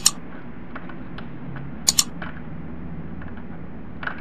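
Two crisp double mouse clicks, a mouse-click sound effect, one right at the start and one about two seconds in, over faint scattered ticks and taps of a cable connector being handled and a low steady hum.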